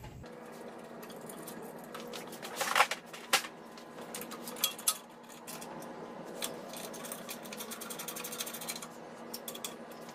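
Small metal clicks and taps from tools and fittings being handled while a bandsaw's table mount is assembled, with a quick run of fine, even clicks from about six to nine seconds in.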